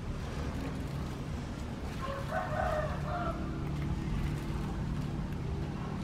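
A rooster crows once, about two seconds in, over a steady low rumble.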